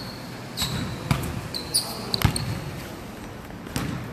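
A basketball bouncing on a gym floor a few times at irregular intervals, with short, high sneaker squeaks on the hardwood between bounces.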